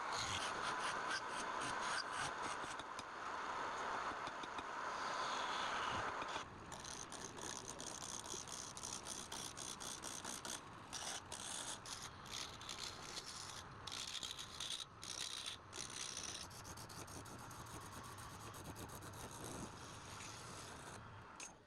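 Wood lathe running with a turning tool scraping and cutting the spinning wood. Louder for about the first six seconds, then lighter and broken by many short gaps.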